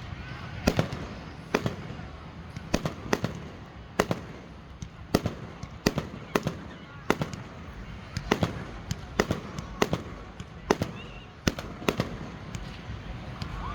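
Fireworks display: a string of about twenty sharp bangs at uneven intervals, roughly one or two a second.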